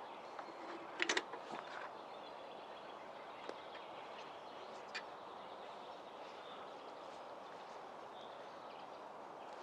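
Outdoor forest ambience: a steady hiss with a quick cluster of sharp clicks about a second in, a couple of single clicks later, and faint bird chirps.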